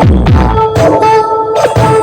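Loud electronic dance music played through a 1200-watt mobile sound system, with deep bass kicks that drop in pitch.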